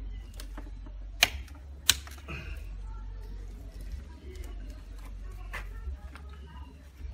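Two sharp clicks about two-thirds of a second apart, a little over a second in, from a miniature circuit breaker being handled and fitted in a distribution board, over a steady low hum.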